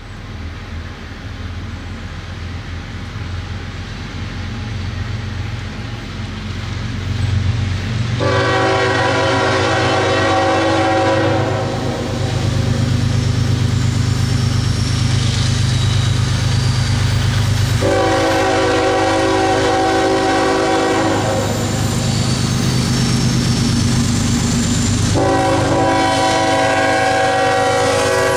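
CSX diesel locomotive approaching, its engine rumble growing louder over the first several seconds. It sounds its multi-tone air horn in three long blasts of about three seconds each, roughly ten seconds apart, the last running on at the end.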